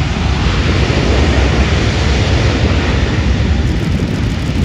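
Boeing C-17 Globemaster III's four turbofan jet engines at high thrust on the runway: a loud, deep, rushing roar that builds over the first second and then holds steady.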